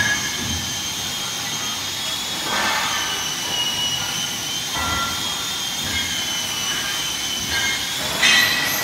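Heavy metal castings clanking and ringing as they are shifted by hand, with the loudest knocks near the start and near the end, over a steady high-pitched machine whine.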